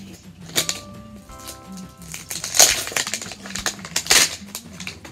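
Crinkly plastic wrap being peeled and torn off an L.O.L. Surprise ball, in several loud rustles, the loudest about two and a half and four seconds in. Quiet background music plays underneath.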